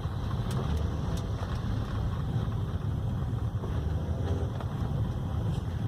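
Chevrolet Captiva being driven, heard from inside the cabin: a steady low rumble of tyres and engine, with a few faint ticks about half a second to a second in. The SUV is on a test drive with freshly replaced suspension control-arm bushings, listened to for the creaks it had been making.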